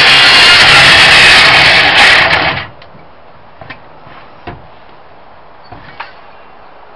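Electric circular saw cutting through a timber cabinet panel, loud until it stops abruptly about two and a half seconds in. A few light knocks follow as the saw is handled.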